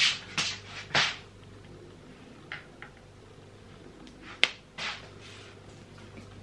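Handling noises: rustling and clicks as small items are taken out of and put back into a leather handbag and an AirPods case is handled, with a sharp click about four and a half seconds in.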